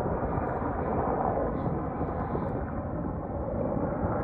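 Low-flying aircraft passing overhead: a steady, low rushing noise, with its downwash buffeting the microphone.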